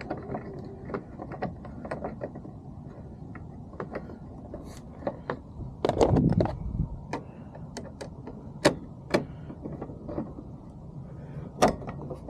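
Scattered plastic clicks and knocks as a replacement interior door handle is worked into its groove in a truck door, with a louder cluster of knocks about six seconds in.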